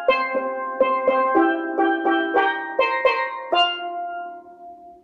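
Mannette-built steel pan struck with mallets, playing a Montuno figure slowly: about eleven ringing notes at an even pace, the last one left to ring and fade away near the end.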